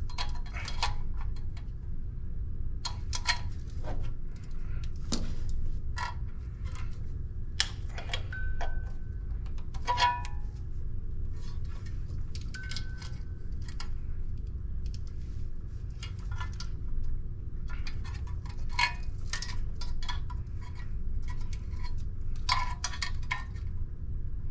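Irregular clinks and taps of small hard metal objects being handled, a few ringing briefly, over a steady low hum.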